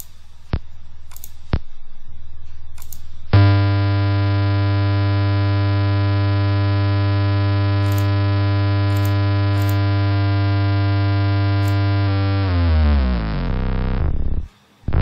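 Synthetic test tone from the speaker output of a Proteus-simulated LM386 audio amplifier, driven by the VSM signal generator. A low hum and a few clicks step up in level, then about three seconds in a loud, steady buzzy tone with many overtones starts. From about twelve seconds its pitch slides down, and it cuts out briefly near the end.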